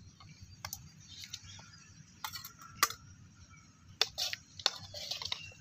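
Steel serving utensils clinking and scraping against steel bowls and a kadai as cooked lemon rice is scooped out and served. Several sharp clinks, the loudest just under three seconds in.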